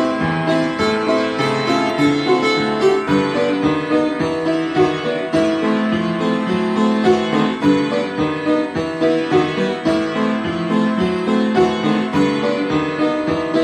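Piano playing a busy samba arrangement, a melody over chords, with notes struck in quick succession.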